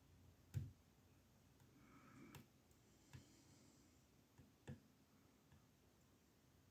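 Faint, scattered clicks of a lock pick working the pin tumblers of a small 20 mm Amtech padlock, four or five separate clicks a second or so apart.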